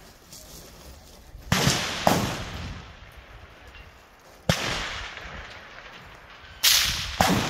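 Rifle shots from a precision rifle fitted with a muzzle brake, fired on a stage. The sharp reports come as a pair about a second and a half in, a single one about four and a half seconds in, and another pair near the end.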